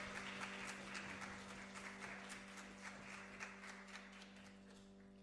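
Small audience applauding, the clapping thinning out and dying away toward the end, over a steady low hum.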